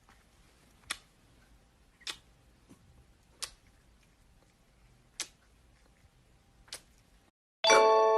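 A handful of sharp single clicks, irregularly spaced a second or more apart, over a faint low hum. Loud music with bell-like chimes starts near the end.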